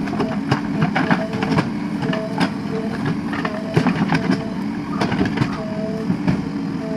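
JCB 3DX backhoe loader's diesel engine running steadily while the backhoe arm works its bucket through the soil, with frequent sharp knocks and clicks throughout.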